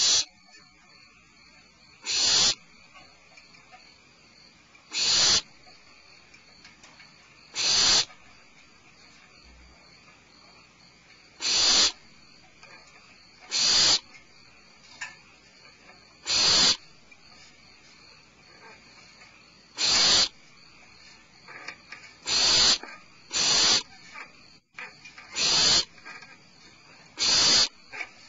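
Barn owls in the nest box giving their harsh, breathy hissing calls: about a dozen rasping hisses, each roughly half a second long, repeated every two to three seconds.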